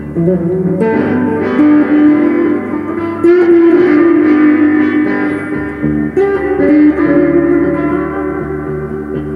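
Telecaster-style electric guitar being played: a line of picked notes that ring on, with stronger attacks about a second in and again a little after three seconds.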